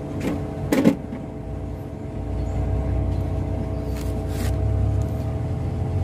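Suzuki Multicab fuel-injected engine running steadily while a faulty ignition coil is tested, with a few sharp clicks near the start and again about four seconds in.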